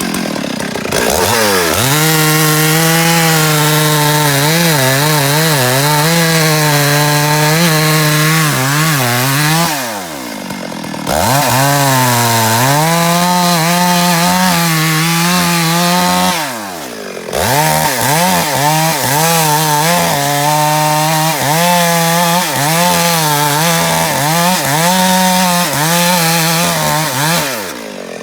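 Two-stroke chainsaw engine running at high revs in three long runs, its pitch wavering up and down. It drops back briefly toward idle about ten seconds in, about sixteen seconds in, and near the end.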